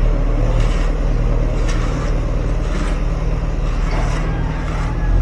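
Motor vehicle engine running steadily with a deep, low hum.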